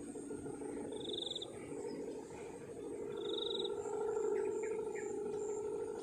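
Steady buzzing drone of a Balinese kite hummer (guangan) vibrating in the wind overhead, swelling in the middle. A short, rapid high chirp sounds twice.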